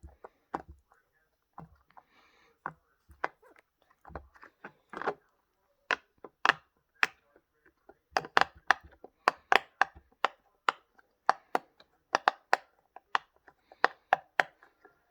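Silicone pop-it fidget toy's bubbles being pushed through one after another: a run of sharp pops, scattered at first, then coming quicker at about two or three a second from about six seconds in.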